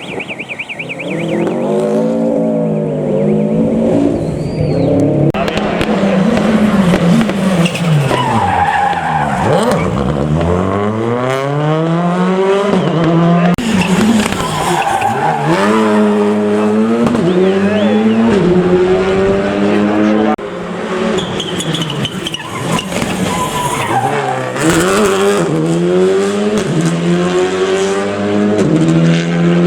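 Rally car engine revving hard on a gravel special stage, its pitch climbing and dropping again and again as the driver shifts gear and lifts off.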